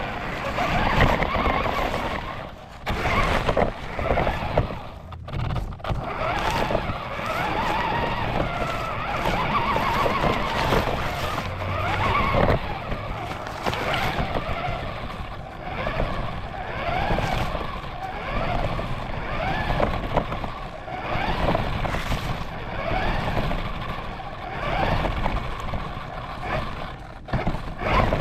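RC car heard from a camera mounted on it while driving: its motor whine rises and falls in pitch with the throttle, over a steady rumble and scattered knocks of the chassis bouncing across rough ground.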